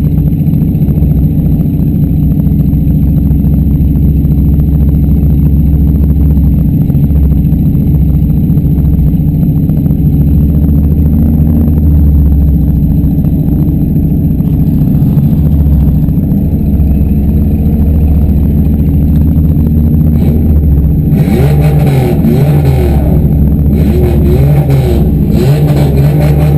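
Demolition derby cars' engines running loudly, with a steady low drone. Near the end the engines rev up and down repeatedly.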